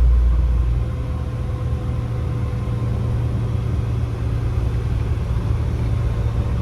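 Motor vehicle engine running with a deep, steady rumble and a steady hum above it; the lowest part of the rumble drops about a second in, and the sound cuts off abruptly at the end.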